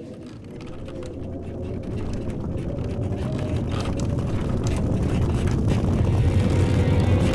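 A low rumble with a steady hum above it, growing steadily louder.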